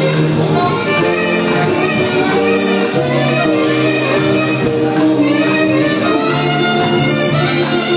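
Live calypso band playing: held notes over a steady percussion beat.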